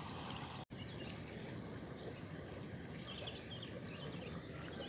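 Steady riverside ambience: the rush of a fast-flowing river, with a few faint bird chirps about three seconds in. The sound drops out for an instant under a second in.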